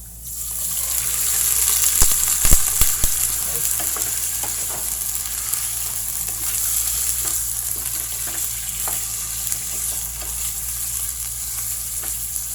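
Chicken pieces sizzling in hot oil as they go into a pan of sautéed garlic and ginger: the frying starts suddenly and goes on steadily, with a few sharp clicks about two to three seconds in.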